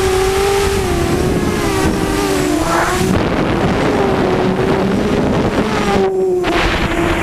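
Hexacopter's six brushless motors (Cobra CM2208-20 2000kv on HQProp 6045 props) whining in flight, the pitch rising and falling with throttle, with wind rushing over the onboard camera. About six seconds in the whine dips briefly, then picks up again.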